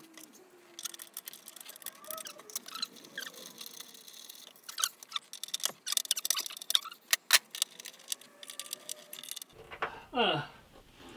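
Screwdriver turning the crosshead (Phillips) bolts that fix a hardwood workbench top to its legs: a long irregular run of sharp metal clicks and scrapes as the tip fails to grip in the bolt heads. A short stretch of voice comes near the end.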